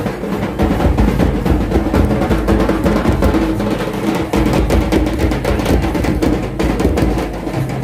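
Loud drum-led folk dance music: a quick run of drum strokes over steady held instrument tones.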